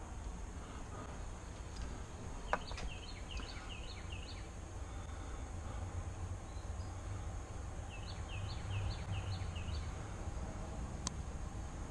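A songbird sings twice, each time a run of five or six quick, repeated down-slurred notes, over a steady low outdoor rumble. A sharp click sounds about two and a half seconds in, with another near the end.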